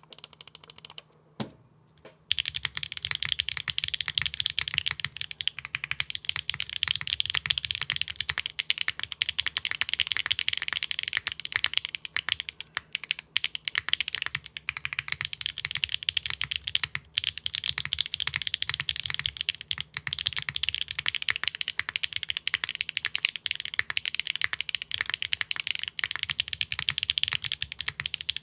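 Mechanical keyboard typing: a 65% board with Akko Cilantro switches on an aluminium plate and no foam, typed fast and steadily in a sound test. There are a couple of single key clicks at first, then continuous clacking from about two seconds in.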